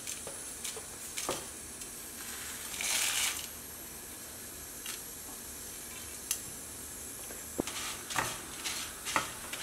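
Whole spices (fennel and cumin seeds, dried red chillies, peppercorns) dropped into a hot, dry non-stick pan over a faint steady hiss, with small ticks and a brief rattling pour about three seconds in. Near the end a wooden spatula starts stirring and scraping them around the pan as they dry-roast.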